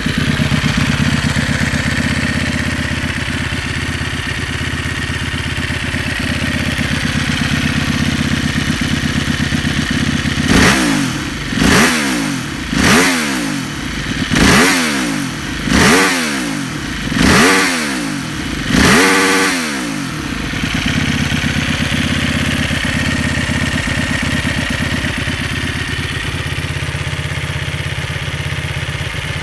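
Aprilia RXV 450 V-twin engine with its stock exhaust, idling steadily. About ten seconds in, the throttle is blipped about seven times in quick succession, each rev rising and dropping straight back. It then settles back to idle.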